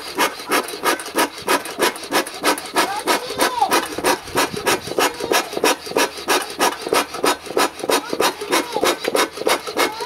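Beekeeper's smoker bellows pumped fast and steadily, a rasping puff of air on each stroke, blowing air into hot coals to drive the heat deeper.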